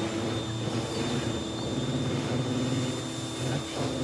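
An electric motor running steadily, with a high, even whine over a broad rushing noise.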